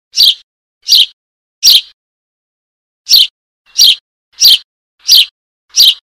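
Eurasian tree sparrow fledgling calling for its parent: short, high begging chirps repeated at an even pace, about three every two seconds, eight in all, with a pause of about a second after the third.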